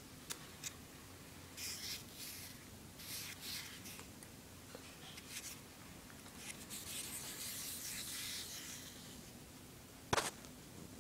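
Handling noise from a handheld phone being moved around: scattered scratchy rubbing bursts, with a sharp knock about ten seconds in, the loudest sound.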